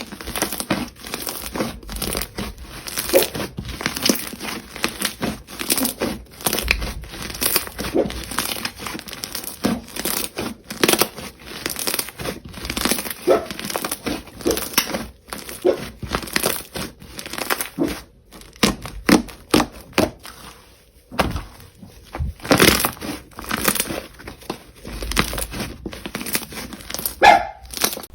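Jelly slime being squished and pressed by hand, making a dense, irregular run of wet pops, clicks and crackles, with one short squeak near the end.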